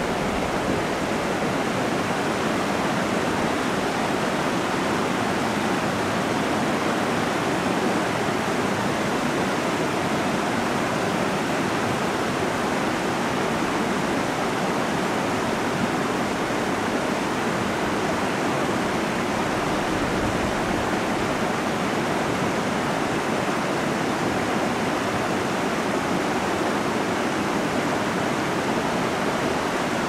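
Shallow stream babbling over rocks: a steady, even rush of running water.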